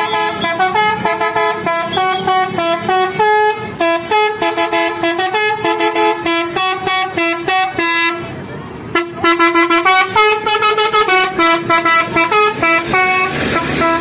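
Telolet basuri musical air horn on a tour bus playing a fast tune of short stepping notes. It breaks off for about a second near the middle, then starts playing again.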